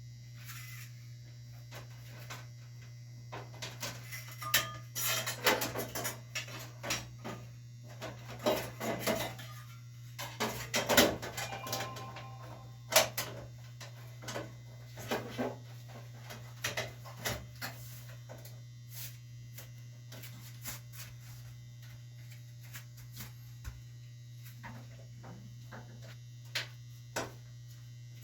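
Back plate of an over-the-range fan being handled and fitted: scattered metallic clicks and clanks, busiest in the first half with a few briefly ringing strikes around the middle, over a steady low hum.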